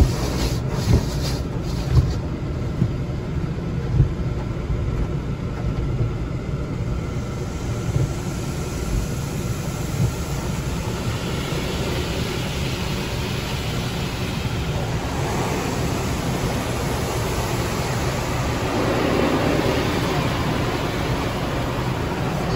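Automatic tunnel car wash heard from inside the car: cloth brushes slap and scrub across the windshield with dull thumps every second or two. About halfway through, water jets take over, hissing and pouring over the glass.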